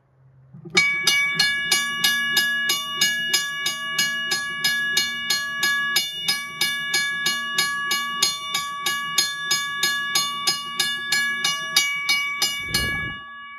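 WABCO electric railway crossing bell ringing, its striker hitting the steel gong steadily about three to four times a second. Near the end the strokes stop with a low knock, and the gong rings on, fading.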